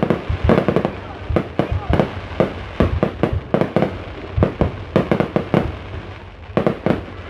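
Fireworks going off in quick, irregular succession: a dense string of sharp bangs, several a second, some louder than others.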